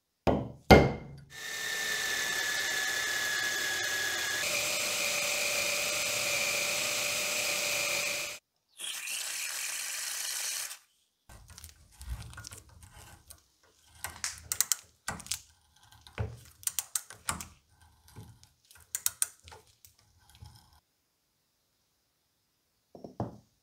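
Two hammer blows on a center punch marking the iron body of an antique ox-tongue clothes iron, then a power drill boring into it for several seconds, its pitch stepping up partway, followed by a shorter second run. Then a hand tap cutting a thread into the hole, turned in short scraping and clicking strokes, and near the end a brief knock as a part is set down on the wooden bench.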